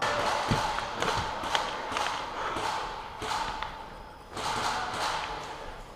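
Irregular sharp knocks and thuds over a steady hiss: airsoft shots and BBs striking hard surfaces in close-quarters play.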